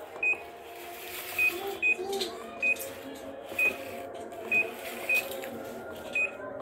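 Washing machine control panel beeping as its buttons are pressed: about eight short, high beeps at uneven intervals while the wash time is stepped to 29 minutes.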